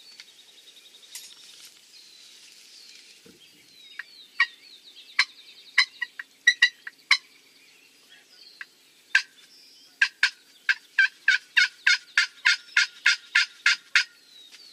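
Wild turkey calling close by: a few sharp, loud notes, then a fast run of about four notes a second for several seconds. Faint songbird twittering sits high behind it.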